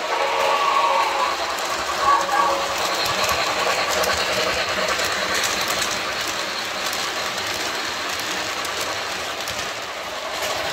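MTH RailKing O-gauge model of the New York Central Commodore Vanderbilt steam locomotive running with its passenger cars. Its electronic steam whistle is still sounding and dies away about two seconds in, then the wheels and motor on the track make a steady running noise.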